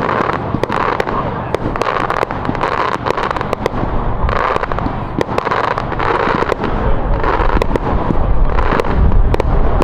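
Fireworks display: a dense, continuous run of sharp cracks and bangs from bursting shells, with heavier, deeper booms building in the last few seconds.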